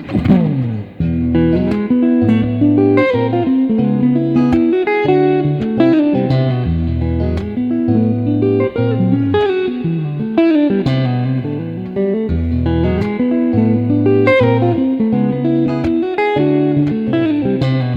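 Electric guitar with an Mtone SSS pickup set (three single-coil pickups) playing a melodic tone demo of picked notes and chords, over a sustained bass line.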